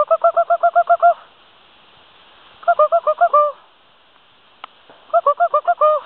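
A husky yipping in quick runs of short, even-pitched yelps, about eight a second: three runs, one at the start, one about two and a half seconds in and one near the end.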